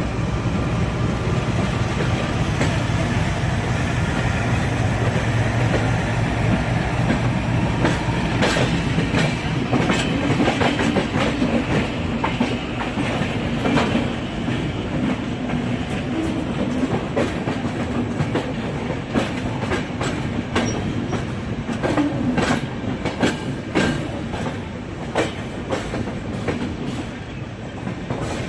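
Train running on rails: a steady low rumble, then from about eight seconds in a rapid, irregular clatter of wheels clicking over rail joints.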